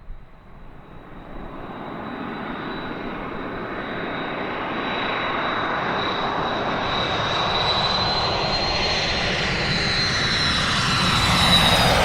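Aircraft approaching, its rushing noise growing steadily louder over about ten seconds, with a steady high whine that edges slightly upward in pitch. It is the build-up to a low pass with wing vortices.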